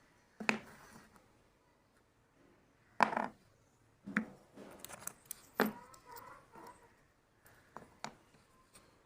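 A handful of short, sharp knocks and clatters spaced a second or more apart, like hard objects being handled and set down.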